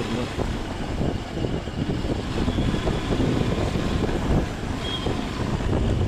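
Wind buffeting the microphone over a low rumble of vehicle and road noise.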